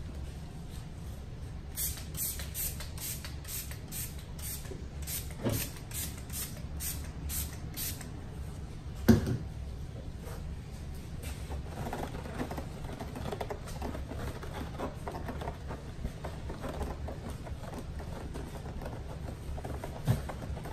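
Trigger spray bottle of coating-prep cleaner spraying onto a plastic tail light lens, about fifteen quick hissing sprays, two or three a second. A single thump follows, then a cloth rustles as it wipes the prep off the lens.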